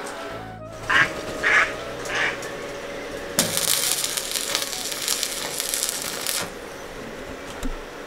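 Ducks quacking, three short calls in the first couple of seconds, over background music; from about three and a half seconds in, a hiss of rushing noise runs for about three seconds and then stops.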